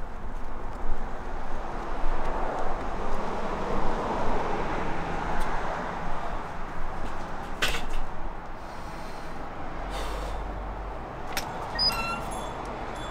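Outdoor street noise with traffic, then a glass shop door being opened: a sharp click about eight seconds in, a few more clicks, and a brief high ringing tone near the end.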